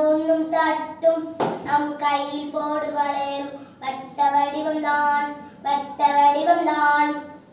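Children singing a song with long held notes, broken by one sharp hit about a second and a half in.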